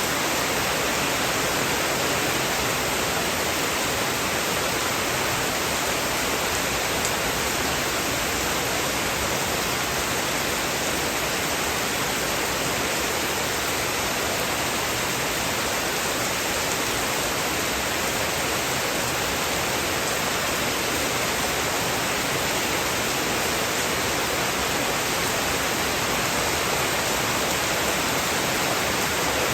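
Steady heavy rain, an even dense hiss with no thunder and no breaks.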